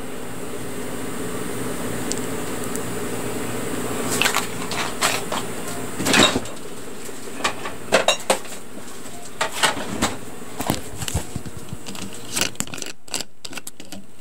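A steady hum for the first few seconds, then irregular sharp crackles and clicks of bread and a fried croquette being handled and eaten.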